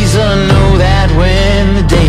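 Music: a sung melody over steady low bass notes.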